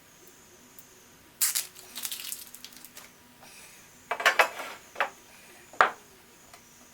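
Metal parts and hardware clinking and rattling as they are handled, in a few short clattering bursts, then two single sharp clinks near the end.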